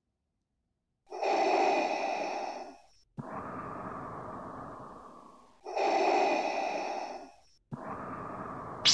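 Darth Vader's mechanical respirator breathing sound effect: two slow breaths after about a second of silence, each a loud hissing intake followed by a longer exhale that fades and drops in pitch. A louder whoosh starts right at the end.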